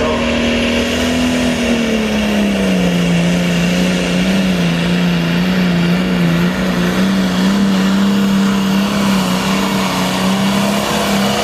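Pulling tractor's engine running hard at high revs, its pitch dropping about two seconds in and then holding steady.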